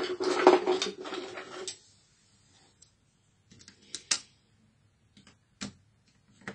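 Hands and a thin tool working on a laptop's plastic palmrest and its ribbon-cable connectors. A scraping rub runs through the first two seconds or so, then after a short pause come scattered light clicks and taps of tool on plastic.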